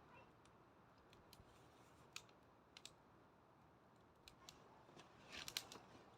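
Faint crackling of a wood bonfire: scattered sharp pops and snaps over a low hiss, with a quick cluster of pops near the end.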